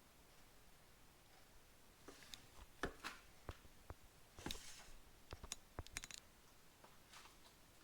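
Faint scattered clicks and light knocks, starting about two seconds in, some a few in quick succession, over otherwise near silence.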